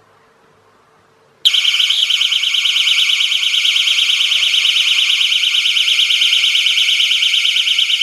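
Personal distress alarm sounding: a loud, high-pitched, rapidly pulsing tone that starts suddenly about a second and a half in. It is set off when hot glue melted by a flame lets a weighted wire drop and close the circuit of a homemade fire alarm.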